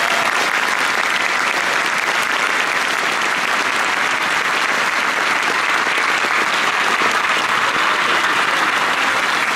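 Large crowd applauding, a dense, steady clapping that keeps going without a break.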